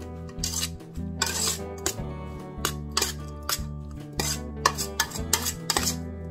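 Metal spoon stirring and scraping shredded radish in an aluminium pot, with irregular clinks and scrapes several times a second, over background music.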